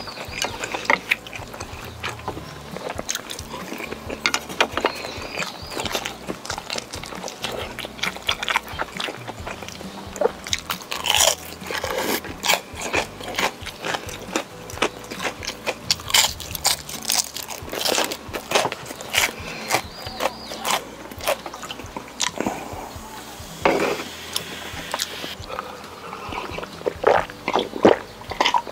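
Close-miked eating sounds: crisp crunching bites and chewing of batter-fried shrimp, a rapid, irregular series of sharp crackles, with background music underneath.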